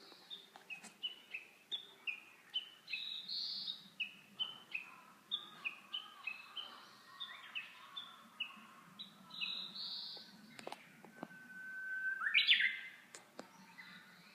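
Japanese bush warbler (uguisu) singing: a run of short, falling chirps, then near the end one long held whistle that breaks into a loud rising flourish, the classic 'hoo-hokekyo' song.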